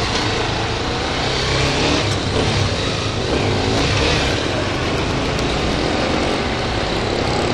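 Honda CB300R's single-cylinder engine running as the motorcycle filters between lanes of slow traffic, with steady wind noise rushing over the microphone.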